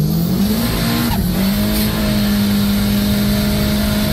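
Car engine under hard acceleration, heard from inside the cabin: its pitch climbs, drops briefly at a gear change about a second in, then holds at high revs.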